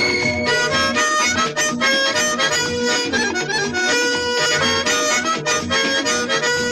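Background music with a reedy lead melody and a steady beat.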